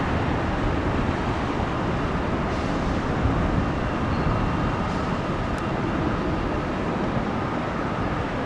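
Jet engines of a Boeing 737 climbing away after takeoff: a steady, even rumble, with a faint thin whine that comes in about halfway through.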